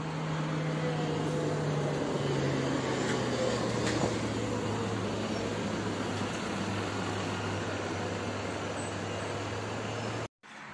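Road vehicle running: a steady engine hum with road noise, its pitch dropping a little about two seconds in. The sound cuts off abruptly just before the end.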